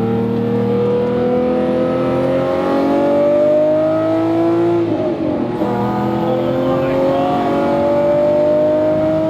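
Lamborghini Murciélago V12 through its new exhaust, accelerating hard: the engine note rises steadily, drops sharply at an upshift about five seconds in, then climbs again through the next gear.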